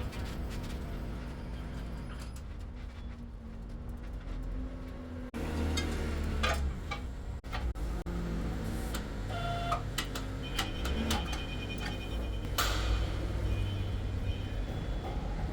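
Franna pick-and-carry crane's diesel engine running low as it is driven into place, with scattered clanks and clicks and a few short tones. The sound changes abruptly about five seconds in.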